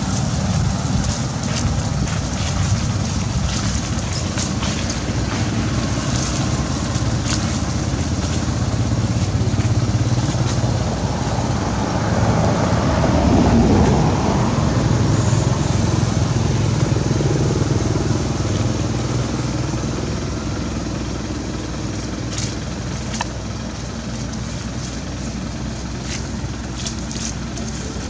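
Motor vehicle engine running, a steady low rumble that grows louder around the middle and then slowly fades, with a few faint clicks over it.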